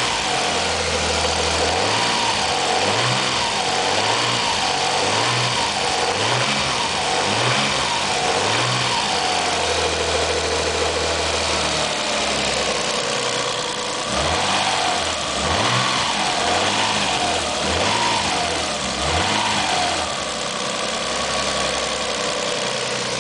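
1990 Nissan 300ZX's V6 engine blipped repeatedly, about once a second, settling to idle in between. The engine has a loud clicking from the rear of the passenger-side bank, which the owner takes for a bad lifter.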